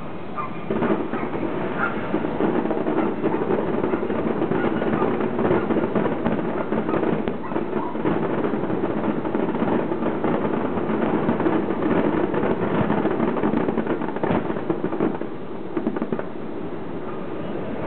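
A distant fireworks display: a dense, continuous crackling of many small reports with a few sharper bangs mixed in. It eases off about three-quarters of the way through.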